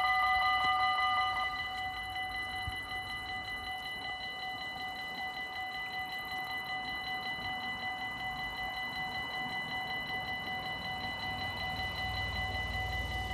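Dutch level-crossing bells ringing rapidly and steadily, warning that the barriers are closing for a train. A little over a second in, the ringing drops to a quieter level, as Dutch crossing bells do once the barriers are fully down. A low rumble grows near the end.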